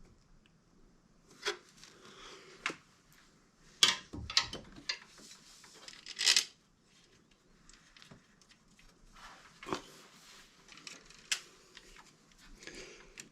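Scattered light clinks, taps and short scrapes of hand tools and small metal parts being handled while a snowmobile's oil filter and drain plug are refitted by hand, about a dozen short knocks with quiet gaps between them.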